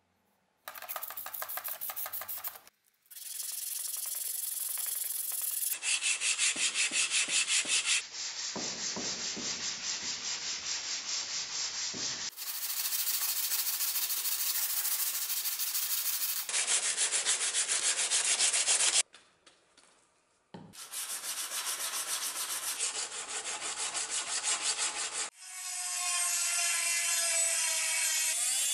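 Steel cleaver blade rubbed back and forth by hand on sandpaper: a run of short cut-together passages of quick, even strokes, with a brief pause about two-thirds of the way in. Near the end a handheld rotary tool with a small grinding stone starts up with a steady whine as it grinds the notches along the blade's spine.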